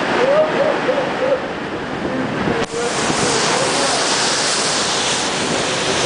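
Seawater surging and foaming across a ship's deck in heavy seas: a steady, loud rushing of surf and spray. A brighter hiss of spray and wind grows louder about three seconds in.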